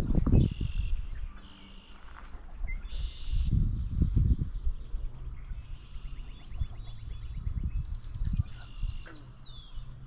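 Marsh birdsong: short song phrases repeated every second or two, with a fast dry trill about six to eight seconds in. Low rumbles on the microphone near the start and again around four and eight seconds in are the loudest sounds.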